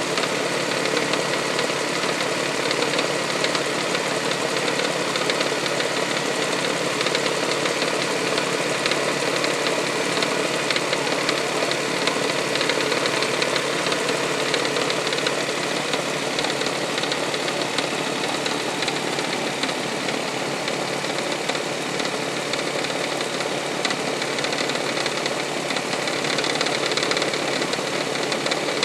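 1999 Toyota Sienna's 1MZ-FE 3.0-litre V6 running steadily with a rapid knocking and tapping, which the owner says sounds like something hitting the valve cover.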